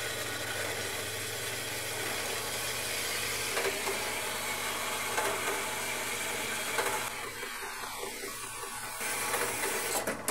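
JET horizontal metal-cutting bandsaw running, its blade cutting through a bar of 4140 alloy steel with a steady motor hum and the hiss of the blade. The sound changes from about seven seconds in as the cut goes deeper.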